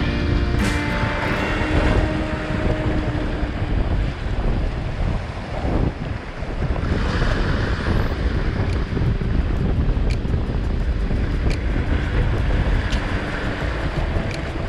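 Small waves washing and breaking over the rocks at the waterline, with wind buffeting the microphone as a steady low rumble.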